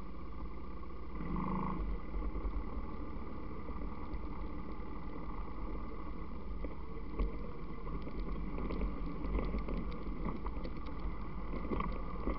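ATV engines running steadily as the quads ride through mud and shallow water. From about seven seconds in, splashing and sloshing from the tyres is added on top of the drone.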